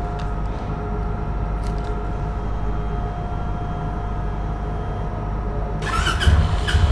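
Motor vehicle engine running steadily, with a low rumble and a faint steady hum. It grows louder with sharper, busier sounds about six seconds in.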